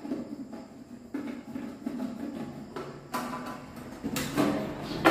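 Screwdriver and hand work on the sheet-metal cover of a circuit breaker panel: scattered light metal clicks, taps and scrapes, some ringing briefly. A louder, sharp metallic clack comes right at the end.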